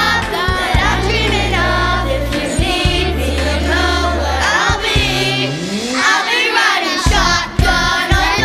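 Band playing a pop song with sung vocals over bass and drums; past the middle the bass slides upward and drops out for about a second before coming back.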